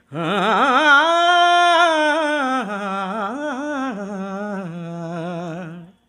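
Unaccompanied male voice singing a wordless melismatic ghazal phrase: the voice climbs about an octave to a held, wavering high note, then winds back down through quick ornaments and settles on a lower held note that stops just before the end.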